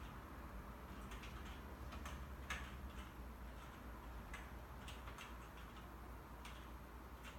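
Computer keyboard being typed on: soft keystroke clicks at an uneven, unhurried pace.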